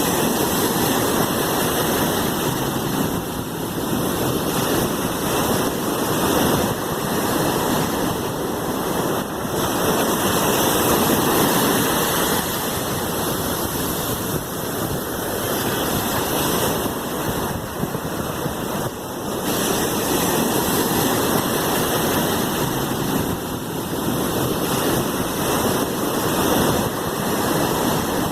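Sea waves washing in, a continuous rushing that swells and eases gently every few seconds.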